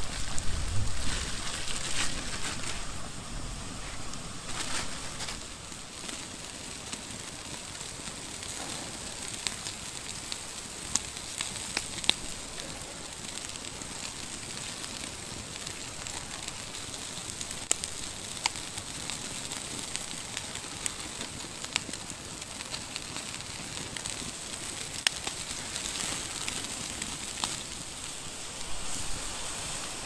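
Wood campfire crackling, with scattered sharp pops over a steady hiss. A low rumble sits under it in the first couple of seconds.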